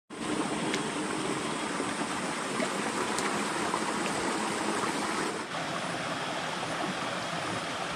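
Shallow rocky forest stream running over stones, a steady rush and trickle of water, with a slight change in its sound about two-thirds of the way in.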